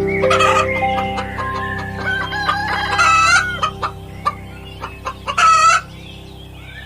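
Chickens calling and clucking: three loud calls, at the start, about three seconds in and about five and a half seconds in, with shorter clucks between, over quiet background music.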